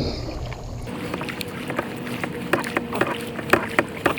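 Kayak being paddled through shallow water: irregular sharp knocks and splashes of the paddle against the water and hull. A steady hum sets in about a second in.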